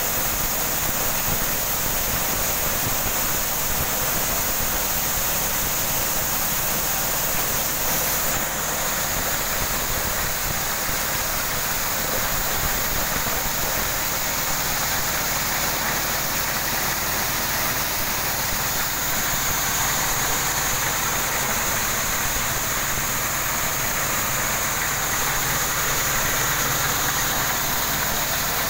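Motorised corn sheller running steadily under load: its small engine drones while the threshing drum strips the cobs, and a steady stream of shelled corn kernels pours out of the chute with a hiss.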